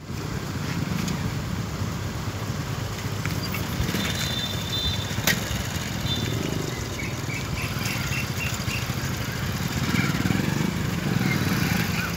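Motorcycle engines running steadily as the bikes cross the tracks, over a continuous low traffic rumble. There is one sharp click about five seconds in.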